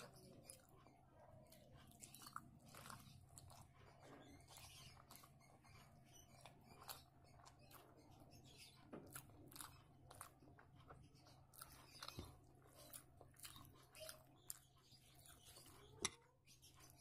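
Quiet, close-up chewing of a person eating rice with dal and fried boiled egg by hand: soft wet mouth clicks and smacks at an irregular pace, with one sharper click near the end. A faint low hum runs underneath.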